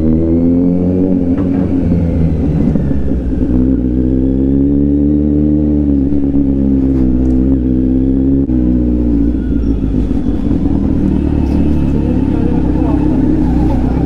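Kawasaki Z900's inline-four engine running at low road speed under light throttle, its exhaust note rising and falling gently in pitch as the bike rolls along.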